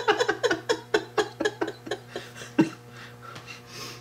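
People laughing: quick runs of short ha-ha pulses that tail off into quieter breathy chuckling after about two and a half seconds.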